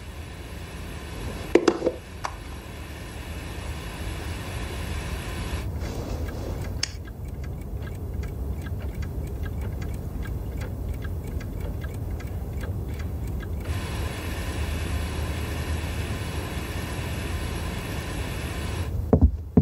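Many clocks ticking in a quick, even rhythm for several seconds, starting about seven seconds in, over a low steady hum.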